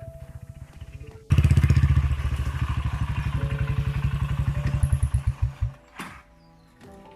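Motorcycle engine running with a fast, even pulsing beat, suddenly louder about a second in, then slowing and dying away near the end as it is switched off, followed by a single click.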